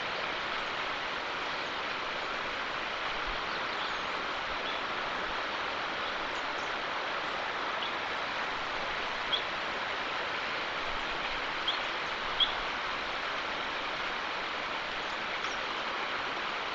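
Steady outdoor background hiss with a few brief, high bird chirps about nine to twelve seconds in.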